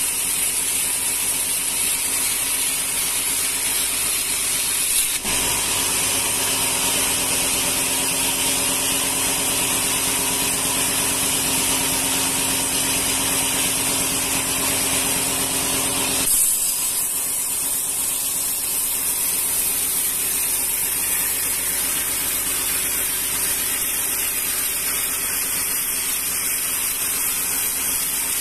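Sawmill band saw running steadily while sawing a rengas log into boards. Its sound changes abruptly about five seconds in and again about sixteen seconds in, and is fuller in between.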